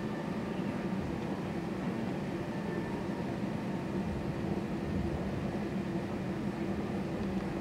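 Steady cabin noise inside an Airbus A320-family jet taxiing: the engines running at low power with an even hum and rumble.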